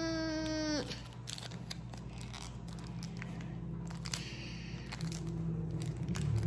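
Small clear plastic packet crinkling and tearing as it is worked open by hand, with many small crackles and clicks. At the start a steady held tone with many overtones stops just under a second in.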